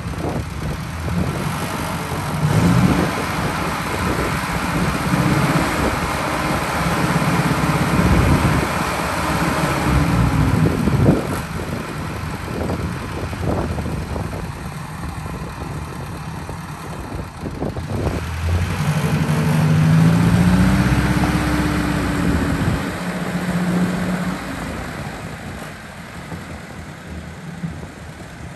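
Ford 861 Powermaster tractor's four-cylinder gasoline engine running as the tractor is driven, its engine speed rising and falling a few times. The sound fades near the end as the tractor moves away.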